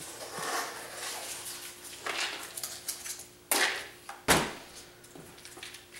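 Painter's tape being handled and pressed on by hand: uneven rasping, rustling strokes, with two sharp knocks a little over halfway through, the second with a dull thud.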